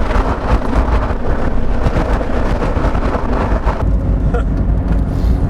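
Loud, gusty rushing noise with a deep rumble in the low end: strong wind buffeting the microphone.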